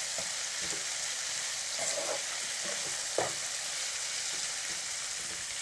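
Sliced ivy gourd and onions sizzling steadily in oil in a kadai as they are stir-fried, with a utensil scraping the pan a couple of times.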